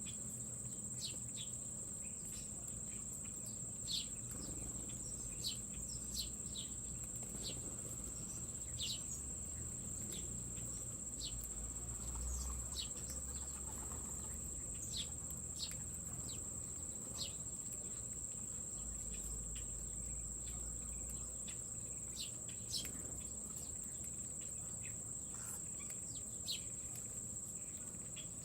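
A steady, high-pitched insect trill runs without a break, with short bird chirps scattered over it every second or two.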